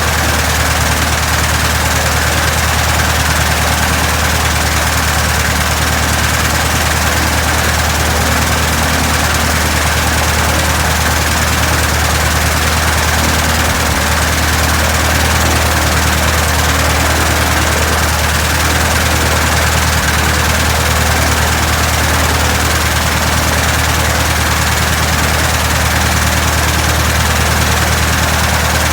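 1967 Citabria's air-cooled four-cylinder aircraft engine running steadily near idle with the propeller turning, during its first run after restoration.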